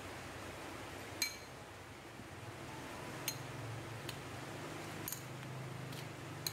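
Light clinks and taps of a metal spoon and wooden spatula against a wok as fried fish pieces are laid into thick sauce: about six short, sharp clinks spread out over a faint low steady hum.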